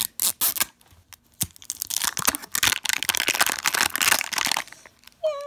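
Thin plastic wrapper crinkling as it is peeled off a toy ball: a few sharp crackles at first, then a long spell of dense crinkling from about two seconds in.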